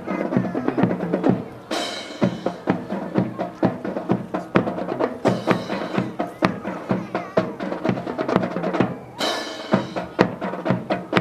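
Music with a drum beat, mixed with many sharp clacks from a drill team's rifle and foot movements. Two brief hissy rushes come about two seconds in and again near the end.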